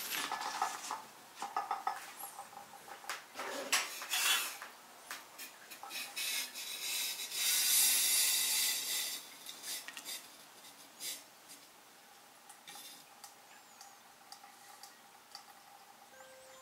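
Clicks and paper rustles as a paper filter is handled and set into a coffee dripper. About seven seconds in, a Hario gooseneck drip kettle pours water onto the filter with a steady hiss lasting a couple of seconds, then a quieter thin trickle follows.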